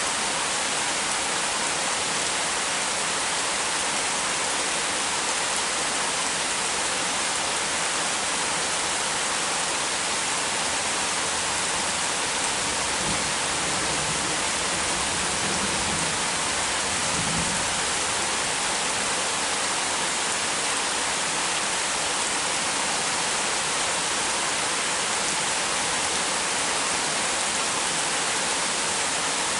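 Heavy rain falling in a steady, unbroken hiss. Midway through, a low rumble of distant thunder swells for a few seconds under the rain.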